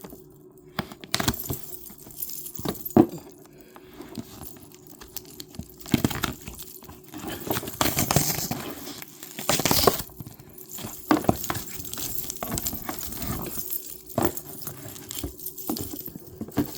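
Packaging being handled: a cardboard shoe box and its paper wrapping rustling and crinkling, with irregular knocks and clicks as the box and contents are moved.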